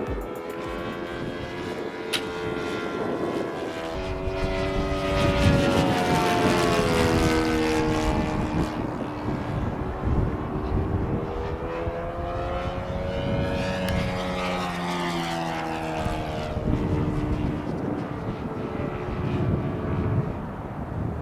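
Radio-controlled model airplane flying past with a propeller drone whose pitch rises and falls with each pass, loudest about a quarter of the way in. Gusty wind buffets the microphone underneath.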